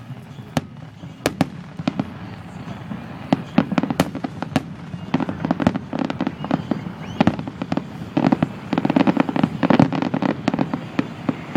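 Fireworks going off: scattered sharp bangs at first, thickening about halfway through into a dense run of bangs and crackling.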